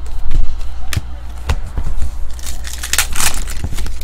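Trading cards flicked and shuffled by hand, with a few sharp card snaps, then a foil card-pack wrapper crinkling loudly a little under three seconds in.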